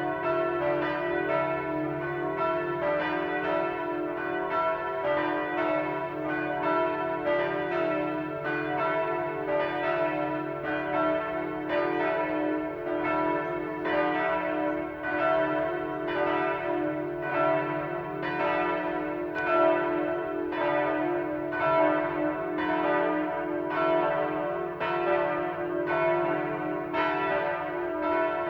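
Full peal of the Schüpfheim parish church bells: several large church bells ringing together, their strikes overlapping in a steady, unbroken pattern while the tones of the different bells hum on underneath.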